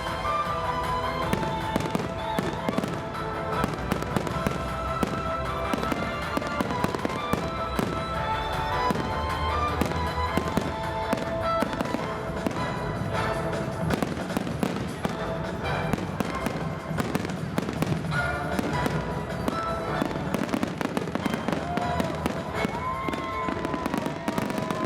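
Fireworks display: a rapid, continuous run of bangs and crackles, over music with steady sustained notes.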